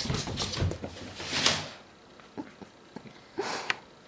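A cat scuffling and scrambling on a wooden floor close by, a burst of rustling and scraping for the first second and a half, then a few faint taps and a short scuff about three and a half seconds in.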